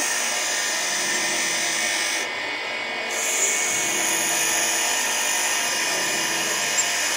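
Angle grinder with a cut-off disc cutting steel angle iron: a steady high, hissing grind of disc on metal. About two seconds in the high part of the cut drops out for roughly a second, then comes back as the disc bites again.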